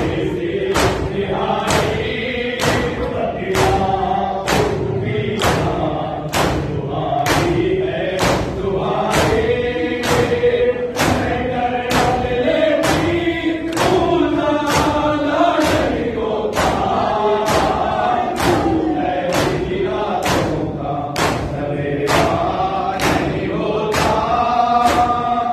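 Men's voices chanting an Urdu noha (mourning lament) in unison, over matam: many hands slapping chests together in a steady beat, about three strikes every two seconds.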